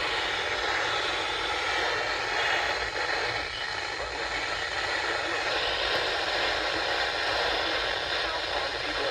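Steady hiss of radio static from a weakly received broadcast, with a voice faintly audible beneath the noise.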